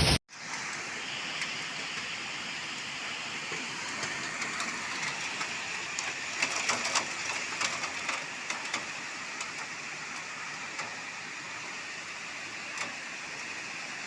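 Thunderstorm rain falling steadily, with scattered sharp ticks of impacts on hard surfaces that come thickest midway through.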